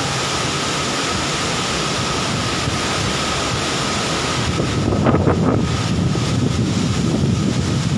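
Heavy rain pouring down in a strong wind, a steady rushing hiss. From about halfway, gusts buffet the microphone and add a rumble.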